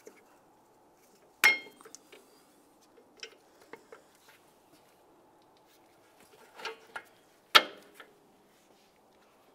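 Sharp metal-on-metal clanks and light clinks as a rear brake caliper is worked into position over the brake rotor. A ringing clank comes about a second and a half in, a few lighter clinks follow, and the loudest clank comes about two seconds before the end.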